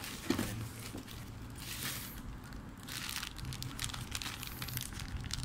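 Cardboard box flaps being handled and a plastic bag crinkling as an item is lifted out: irregular rustling and crinkling.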